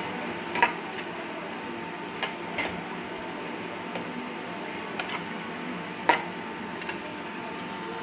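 Perforated steel skimmer spoon knocking and scraping against a frying pan as vegetables are stirred, a handful of sharp irregular clicks, the loudest near the start and about six seconds in, over a steady hiss.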